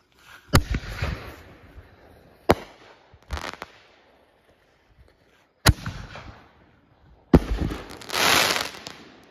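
Aerial firework shells from a homemade mortar rack going off: four sharp bangs over about seven seconds, each trailing off in crackle. Near the end comes a loud, dense crackling spray.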